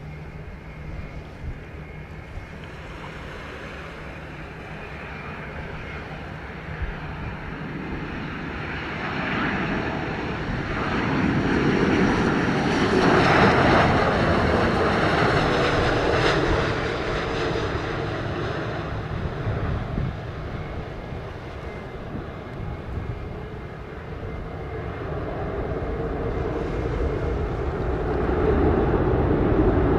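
Airbus A330-900neo's Rolls-Royce Trent 7000 turbofans on landing approach, the engine noise building to its loudest as the jet passes low overhead about halfway through, then fading. The noise swells again near the end.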